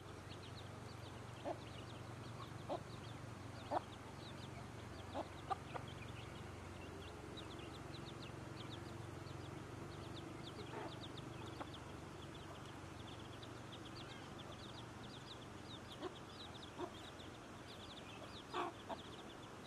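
Chicks peeping in quick, high, continuous cheeps, with a hen's short clucks now and then as they feed on scattered corn. A faint steady low hum runs underneath.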